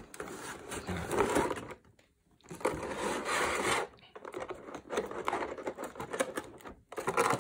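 Clear plastic blister packaging and a cardboard window box rustling, scraping and crackling as a boxed collectible figure is worked out of its packaging, with a short silent pause a little before two seconds in.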